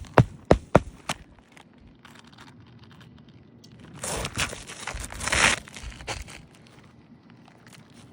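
A hammer drives a roofing nail into an asphalt shingle with a quick run of sharp blows, about four a second. About four seconds in comes a couple of seconds of scratchy rustling, as of a stiff shingle being handled or scraped.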